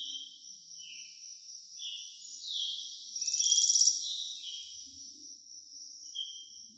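Songbirds singing short, high chirping phrases over a steady high insect drone. A rapid trill swells up and stops about three to four seconds in.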